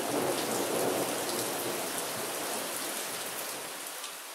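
Heavy rain pouring onto a flooded meadow and its standing water, a dense steady hiss. A fuller, lower swell is loudest about a second in and slowly eases off.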